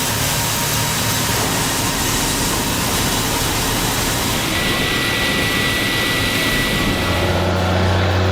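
Steady, loud machinery noise with a rushing, even character. A single high whine holds for a couple of seconds midway, and a low engine hum comes in near the end.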